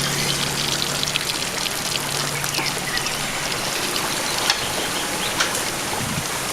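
Hot cooking oil sizzling steadily as food deep-fries, with constant fine crackling and a couple of sharper pops about four and a half and five and a half seconds in.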